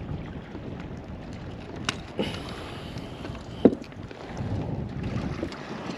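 Handling noise aboard a fishing kayak: a steady low rumble with a few sharp knocks, the loudest about three and a half seconds in.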